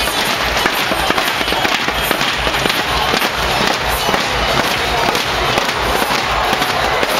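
Arena crowd banging inflatable thundersticks together in a dense, rapid clatter, over music with a steady bass beat.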